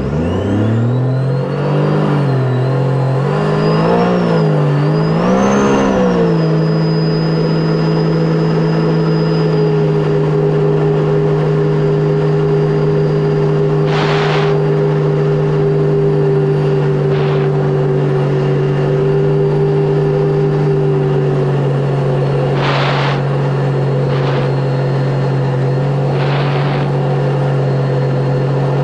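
2018 Sea-Doo RXP-X 300 jet ski's supercharged three-cylinder engine revving up, its pitch swinging up and down three times in the first few seconds, then holding a steady cruising note. Several brief hisses of spray come over it in the second half.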